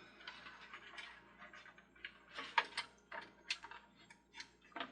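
Light, irregular plastic clicks and ticks from a toy Christmas carousel's mechanism, with its guide wheels dry.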